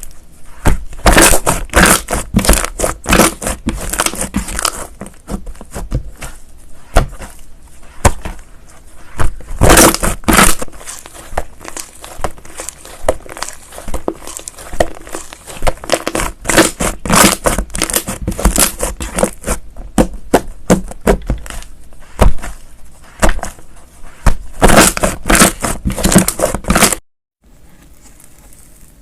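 Slime being squeezed, poked and stretched by hand, making dense runs of sticky popping and crackling clicks. It cuts off abruptly near the end, and a much quieter passage follows.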